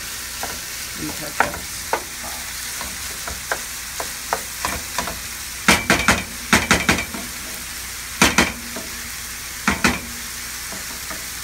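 Ground meat and sliced baby bella mushrooms sizzling steadily in a frying pan while a wooden spoon stirs and scrapes through them. The spoon knocks against the pan in sharp clacks, the loudest in bunches about halfway through and again near the end.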